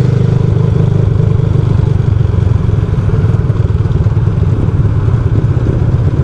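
Two-stroke engine of a Yamaha Lagenda 110ZR moped with a 63 mm bore kit, running steadily at low revs as the rider slows to pull over.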